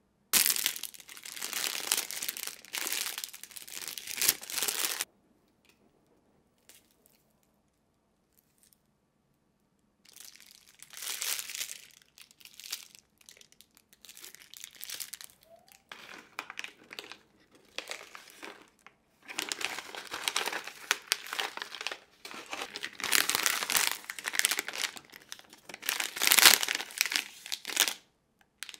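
Plastic grocery packaging and plastic bags crinkling and rustling as items are handled and unpacked. The sound comes in bursts, with a silent gap of about five seconds after the first.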